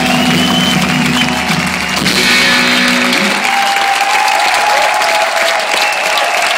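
A rock band's final chord rings out on sustained electric guitar and bass notes and stops about three seconds in. A live audience applauds and cheers throughout.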